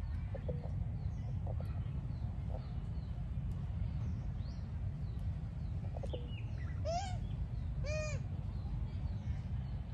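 A baby monkey giving short squeaky calls, ending in two clearer squeals about a second apart that rise and fall in pitch, over a steady low rumble and faint high chirps.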